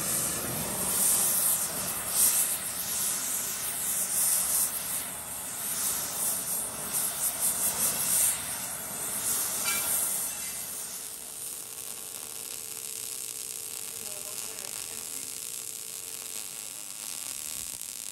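Gas torch flame hissing as it preheats the thick steel recovery points of a bumper before welding. The hiss is louder and uneven at first, then settles to a quieter steady hiss about eleven seconds in.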